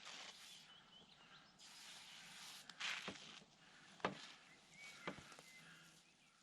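Faint rustling with three sharp clicks about a second apart, like footsteps.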